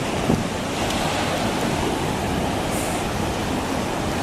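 Ocean surf breaking and washing up the beach, a steady rush of noise, with one brief knock near the start.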